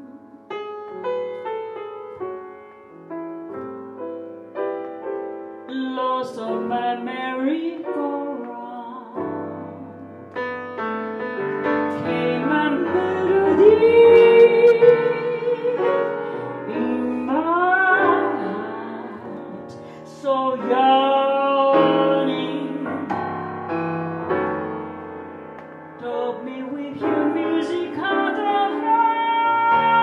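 Woman singing a slow jazz ballad while accompanying herself on a Yamaha grand piano. The opening seconds are mostly piano chords. Her voice comes in partway through with long sliding held notes over the piano.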